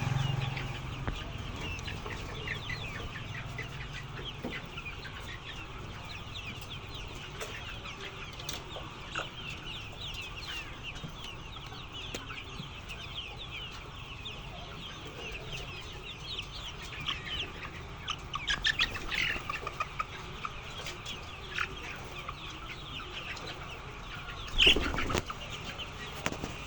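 A flock of chickens clucking and chirping steadily, many birds calling over one another. A short, loud burst sounds near the end.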